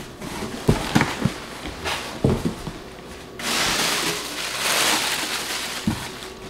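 Handling of a cardboard box: scattered taps and knocks on the flaps, then, about three and a half seconds in, a long rustle of tissue paper being pulled out of the box, and a thump near the end.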